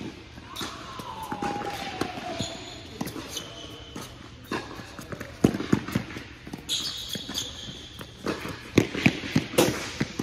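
A tennis rally on an indoor hard court: racquets striking the ball and the ball bouncing, as a string of sharp pops, loudest about halfway through and in a quick cluster near the end. A few short high squeaks come in between.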